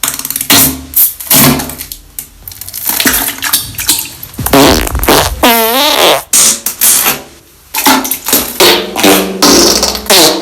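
A rapid string of farts, mostly short sputtering blasts. About five seconds in comes one longer pitched fart whose tone wobbles up and down.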